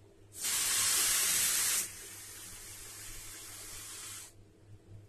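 A breath blown through a homemade mouth-blown spray tube made from an empty ballpoint pen, atomising watered-down paint as an airy hiss. The hiss starts about half a second in, is loud for about a second and a half, then goes on weaker until it stops about four seconds in.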